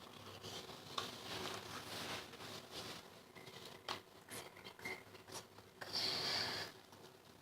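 Homemade slime being handled and worked, with soft rubbing and scraping sounds and a few sharp clicks. There is a short hissing rustle about six seconds in.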